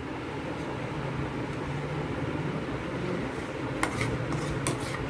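A few light clicks and taps as pancakes are handled on a ceramic plate, over a steady low hum.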